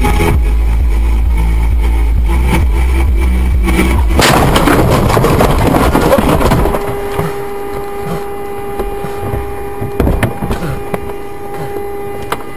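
Car driving on a wet road with a steady low rumble, then about four seconds in a sudden crash: a loud impact followed by a couple of seconds of crunching and scraping as the car goes off the road. After that a steady tone is held through to the end, with a few clicks.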